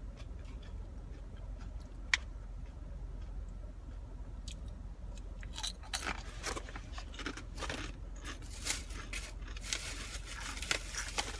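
Crunchy snack chips being chewed close to the microphone, as a run of crunches through the second half, over a steady low hum.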